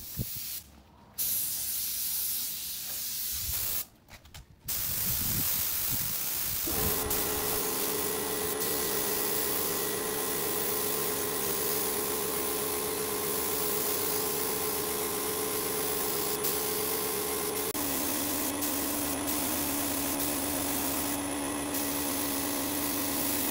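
Compressed-air spray gun hissing steadily as it sprays the pine frame, with a short break early on. A steady tone runs under the hiss and drops in pitch once, about three-quarters of the way through.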